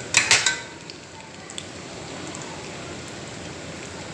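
French fries coated in egg and cornstarch deep-frying in a pan of oil, a steady sizzle of bubbling oil. A brief loud clatter near the start.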